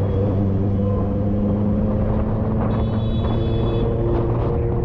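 Motorcycle engine running steadily while riding through traffic, with road noise. Its note shifts slightly about three and a half seconds in, and a brief high-pitched tone sounds about three seconds in.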